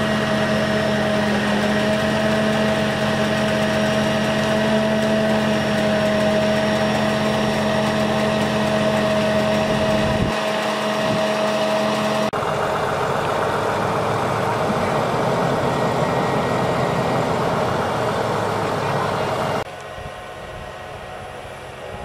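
Diesel engine of a truck-mounted crane running steadily as the crane lifts a heavy load, with a steady high whine over the engine hum. About halfway through the sound changes abruptly to a rougher, noisier engine rush, and near the end it drops sharply to a much quieter level.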